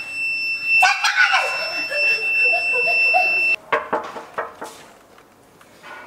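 Electronic buzzer of a Kidz Labs Spy Science toy intruder alarm sounding one steady high-pitched tone, set off by the door's trigger plate. It cuts off suddenly about three and a half seconds in, followed by a few light clicks and knocks.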